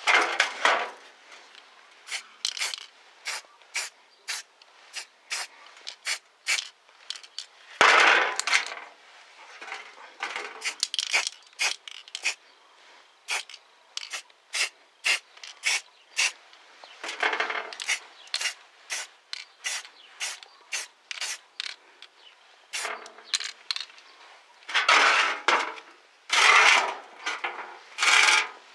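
Hand plane parts being worked by hand: scraping or rubbing strokes, a few of them longer passes of about a second, among many short sharp clicks and taps of handling.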